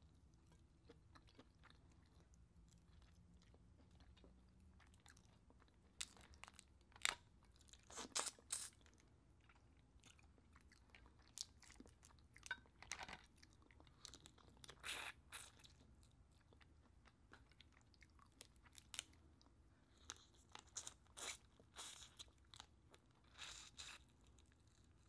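Lobster being eaten by hand: scattered short wet clicks, crunches and mouth smacks of chewing lobster meat and sucking on the shell, starting about six seconds in after a quiet opening and coming in small clusters.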